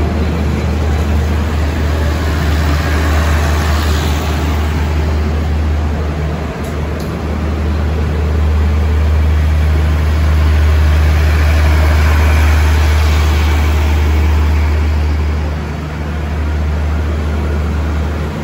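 Passenger coaches of a State Railway of Thailand express train rolling past the platform as it pulls in: a steady rumble of wheels on rails over a strong low hum, loudest about ten to thirteen seconds in.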